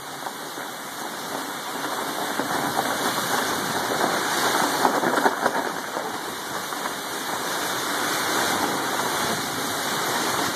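Storm wind gusting with heavy rain, a continuous rushing noise that swells to its strongest about halfway through, then eases slightly.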